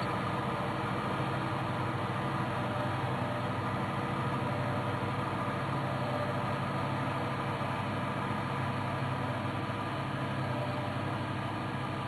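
A large engine running steadily, an even drone with no change in speed.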